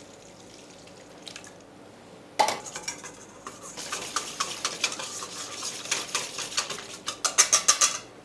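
Wire whisk beating a thin rice-flour batter in a stainless steel bowl, the wires clinking rapidly against the bowl's side. The whisking starts about two seconds in and is fastest and loudest near the end.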